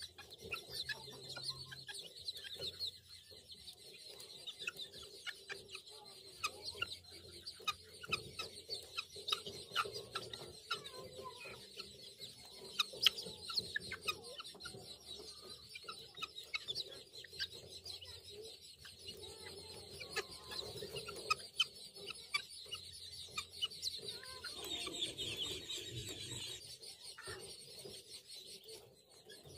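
A flock of young helmeted guinea fowl keets calling as they forage: a busy, continuous stream of short, high calls, busiest a little before the end.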